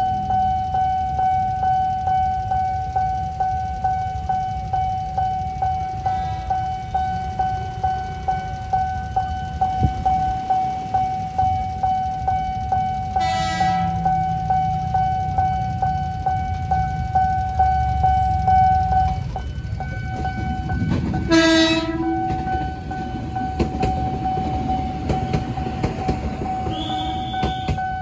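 Level-crossing warning alarm sounding a steady pulsing tone, about one and a half pulses a second, while a KAI rescue train approaches and passes with a low rumble. The train's horn sounds briefly about halfway through, then louder and longer a little later. The alarm breaks off for a moment after the first horn and then resumes.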